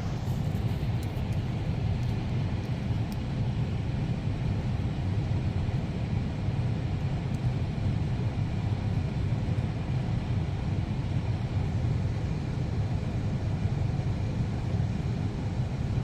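Running air-conditioning unit: a steady low hum from its fan and motor, with a few faint clicks in the first few seconds.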